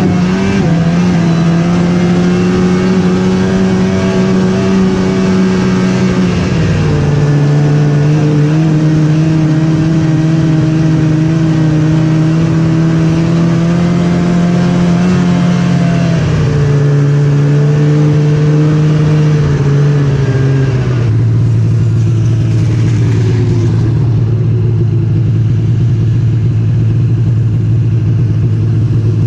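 Snowmobile engine running under way, loud and steady. Its pitch drops in steps three times, about a quarter, half and two-thirds of the way through, and holds lower to the end.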